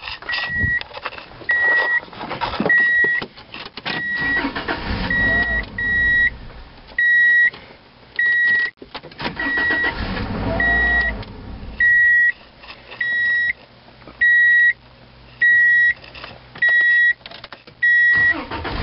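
A Subaru Legacy's dashboard warning chime beeping steadily, one short high tone a little more often than once a second, as with the key in the ignition and the driver's door open. Rustling and handling noises come from inside the cabin under it.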